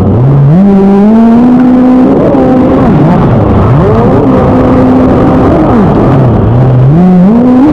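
Engine revving up and down over and over, its pitch climbing, holding for about a second, then dropping back to idle.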